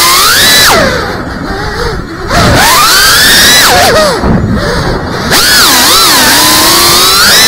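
Brushless motors and propellers of a small FPV drone, heard from its onboard camera: a loud whine over wind rush, its pitch sweeping up and down with the throttle. It falls quieter twice, about a second in and about four seconds in.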